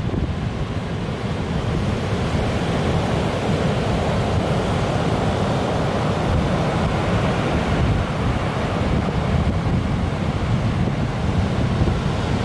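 Large typhoon-driven surf breaking continuously as closed-out waves, a steady noise of crashing water, with wind buffeting the microphone.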